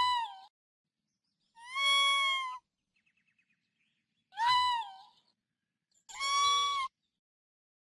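Raccoon calls: four high-pitched cries about every two seconds, short ones that rise and fall alternating with longer, level held ones. A faint run of quick ticks comes between the second and third.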